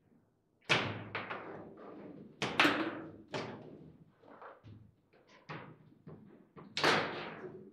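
Foosball table in fast play: a string of sharp knocks and clacks as the ball is struck by the plastic figures and the rods bang. The loudest hits come about a second in, near three seconds and near seven seconds.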